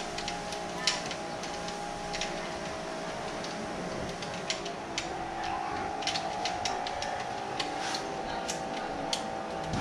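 Irregular small metallic clicks and ticks of a hand ratchet driver turning a bolt at a motorcycle's front fork clamp, over a steady background hum.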